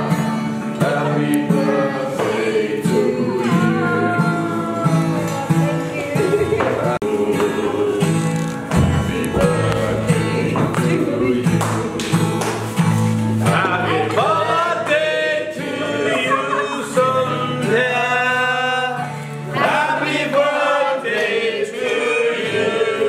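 Singing to an acoustic guitar, with more than one voice and sung lines that slide up and down in pitch over the guitar's sustained low notes.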